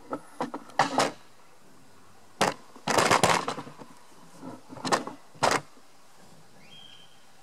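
Irregular clicks, knocks and clunks of handling as the camera is moved and a compression gauge on its hose is picked up. They come in short clusters over about five seconds.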